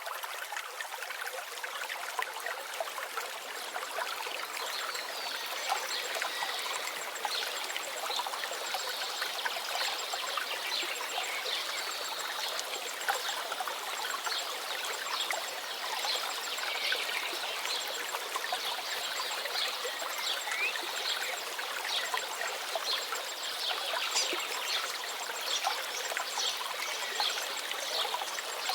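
A small stream trickling and babbling steadily over stones, a dense, bright splashing with no deep rush.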